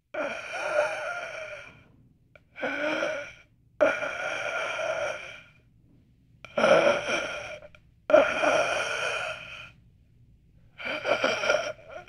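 A dying person's last breaths: six gasping breaths of about one to two seconds each, separated by short pauses.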